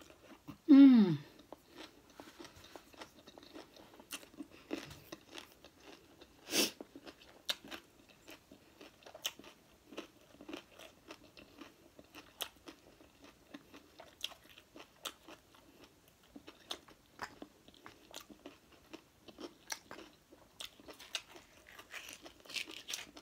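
Close-miked chewing of sushi: soft, irregular wet mouth clicks and smacks. A short falling hum of the voice comes about a second in, and one louder smack comes at about six and a half seconds.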